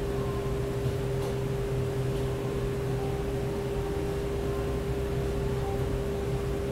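Steady mechanical hum: a constant mid-pitched tone over a low drone and even hiss.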